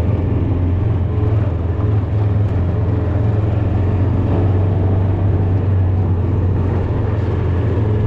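Motor vehicle running steadily, a low, even drone of engine and road noise with no letup.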